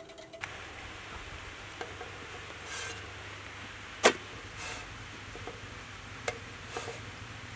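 Thin flatbread being handled in an aluminium basin and brushed with a silicone brush: a few light taps and rustles, with one sharp knock against the metal about four seconds in. Background music cuts off about half a second in.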